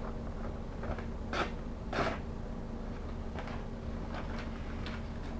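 A few short scraping swipes of a Victorinox pocketknife blade drawn across a ceramic sharpening rod, two clearer strokes about a second and a half and two seconds in, then lighter ones, over a steady low hum.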